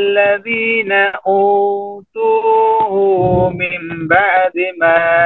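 A man reciting the Quran in a melodic tajweed chant. He draws the syllables out into long held notes, with short pauses between phrases.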